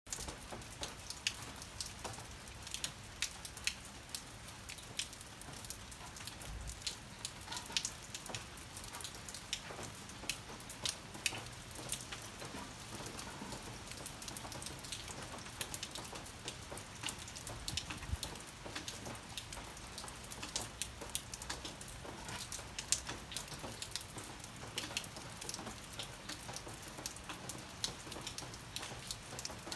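Rain falling: a steady hiss with many irregular, sharp drop ticks.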